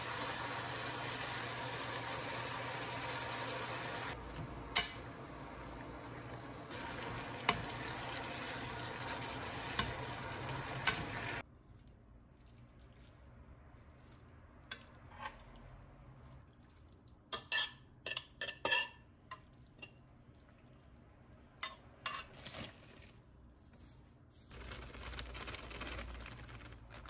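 Food sizzling in a frying pan while a utensil stirs it, with a few sharp clicks; the sizzle cuts off suddenly about halfway through. After that, quieter kitchen sounds with a few light clinks of dishes or utensils.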